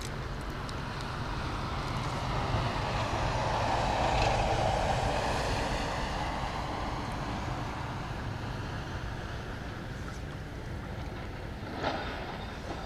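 Water rushing and swishing as a spearfisherman moves upstream through a river. It swells and then fades over a few seconds, with one short knock near the end.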